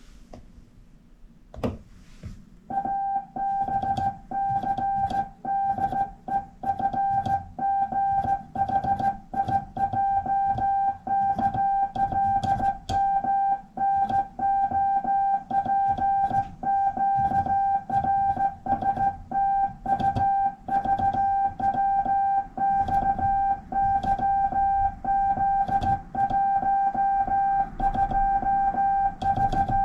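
Morse code sent by hand on a straight key: a steady CW sidetone beep switched on and off in irregular dots and dashes, starting about three seconds in, with sharp clicks from the key.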